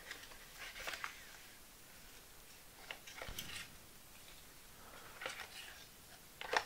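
Faint rustling and scraping of a cardboard box and paper inserts being handled as the contents are lifted out, in a few short scuffs, the loudest near the end.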